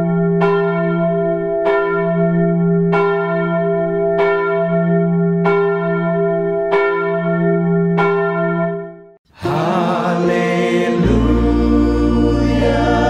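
A bell struck steadily, about once every 1.25 seconds, seven times. Each stroke rings on into the next. The ringing stops about nine seconds in, and a sung worship song with a choir and instruments begins.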